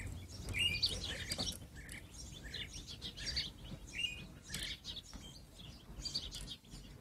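Small birds chirping, with short calls scattered irregularly over a faint outdoor hiss.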